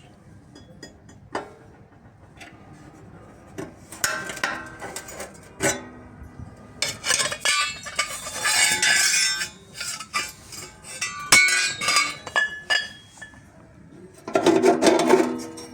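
Metal clinking and tapping: irregular sharp strikes of hand tools on metal parts, some with a short ringing tone, busiest in the middle. Music with a plucked guitar comes in near the end.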